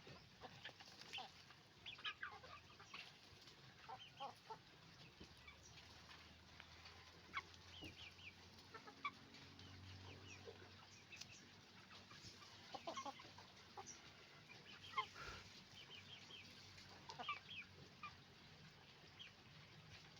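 Chicken flock on a farm, many hens clucking in short, overlapping calls, faint.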